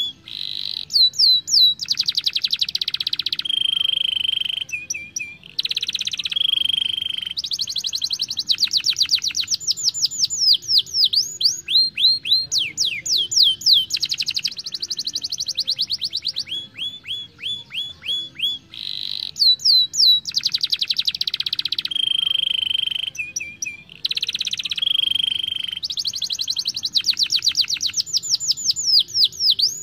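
Domestic canary singing continuously: fast trills and rolls of rapidly repeated down-slurred notes, broken by short steady whistled notes.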